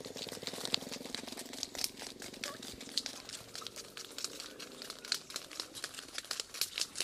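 Footsteps of several people walking on a dirt path: irregular scuffs, crunches and small clicks of sandals and feet.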